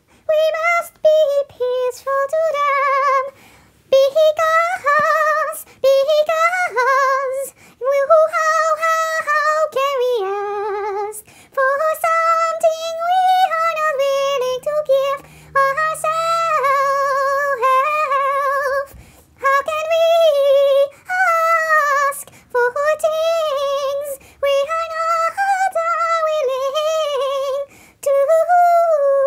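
A high solo voice singing with a wavering vibrato, in phrases of a few seconds separated by brief pauses, with little or no accompaniment.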